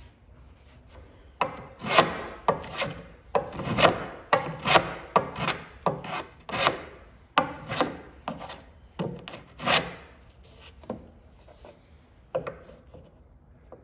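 Small hand plane shaving the edge of a wooden rudder to fair it, a quick run of short cutting strokes about two a second, then a few last strokes spaced out near the end.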